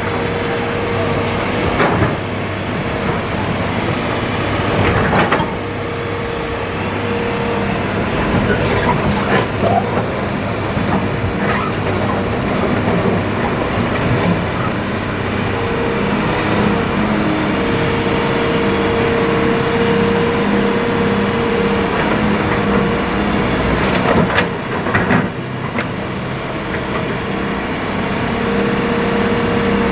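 Hitachi ZX200-5 excavator's diesel engine running under load with a steady hydraulic whine that rises and drops away as the arm and bucket work. A few sharp knocks and clatters of river stones, the loudest about 24 to 25 seconds in.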